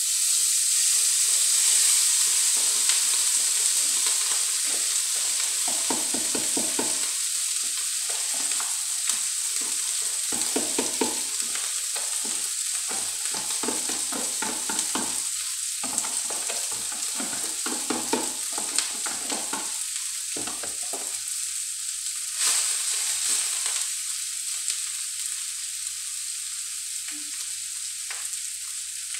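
Cooked rice dropped into hot oil in a wok, starting to sizzle loudly all at once and then slowly dying down, with a brief louder burst of sizzling about 22 seconds in. Short taps and scrapes of the rice and spoon come through the middle of it.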